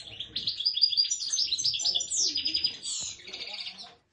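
Small caged songbird singing a fast, continuous twittering song of high chirps and trills, with a rapid trill about three seconds in and a brief break near the end.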